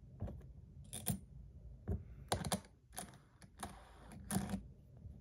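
Small metal parts of a stainless steel fidget spinner clicking and clinking as they are handled and set down during bearing installation: a string of light, irregularly spaced knocks.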